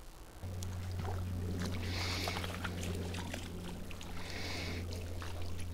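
A steady low hum starts abruptly about half a second in and holds level. Two short splashes of water come over it, about two seconds apart.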